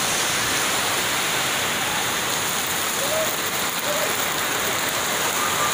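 Heavy rain pouring down onto corrugated metal roofs: a steady, dense downpour hiss.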